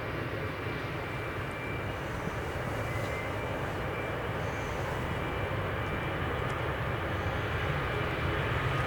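Jet airliner's engines running at takeoff power on the takeoff roll: a steady roar that slowly grows louder.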